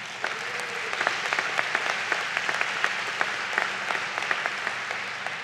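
Large seated audience applauding, many hands clapping at once; the applause builds in the first second and tapers off near the end.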